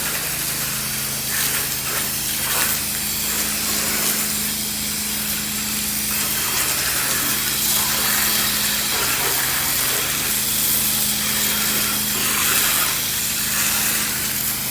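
Pressure washer spraying through a long-range shooter nozzle on a J-rod, flowing 8-9 gallons a minute: a steady hiss of the water jet with a steady low hum from the machine underneath.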